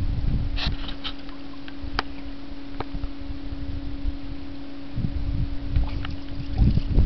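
A Bernese mountain dog sloshing and splashing water in a plastic paddling pool as she noses along the bottom, with a few sharp splats and heavier splashing near the end. A steady low hum runs underneath.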